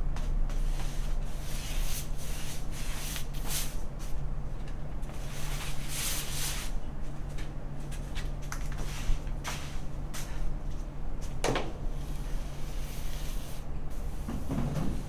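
Irregular swishing and rubbing strokes over a steady low hum, with a sharper stroke about two-thirds of the way through and a dull thud near the end.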